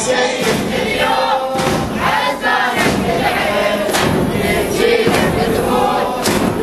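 A crowd of Shia mourners chanting together in a Muharram lament. Sharp strikes land roughly once a second to keep the beat.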